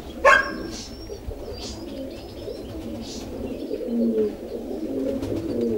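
Domestic pigeons cooing in a loft, a continuous overlapping low warbling coo from several birds. A single sharp, loud sound comes about a quarter second in.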